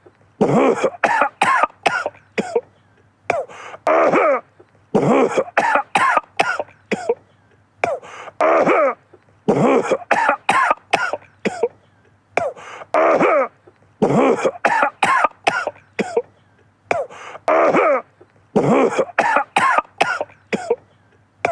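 A man coughing in repeated fits. Each fit is a harsh drawn-out cough followed by several short, sharp coughs, with brief pauses between fits.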